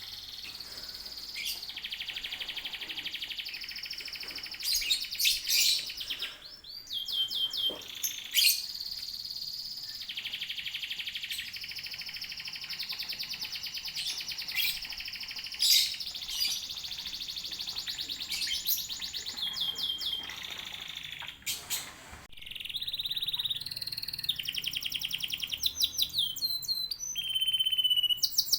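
A group of domestic canaries singing: long rapid trills and rolling runs of repeated notes, broken by quick swooping whistles. Used as a lure song to set other canaries singing.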